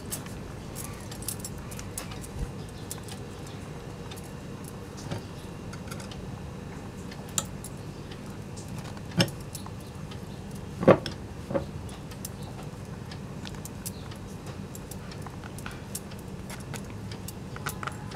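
Muslin cloth rustling as hands twist and knot it around curd in a stainless steel mesh strainer, with scattered light clinks and a few sharper knocks against the strainer and pot, the sharpest around the middle. A steady faint hum runs underneath.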